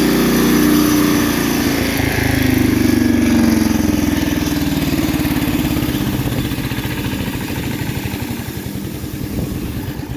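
Engine driving a McCormick-Deering 4-E hammer mill. It runs steadily at first, then turns uneven and lumpy and loses level in the second half, as if it might stall. The owner says it needs a tune-up.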